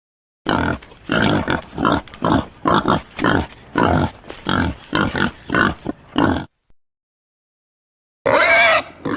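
Domestic pig grunting: a rapid run of short oinks, two to three a second, for about six seconds. After a pause, a longer, higher-pitched oink comes near the end.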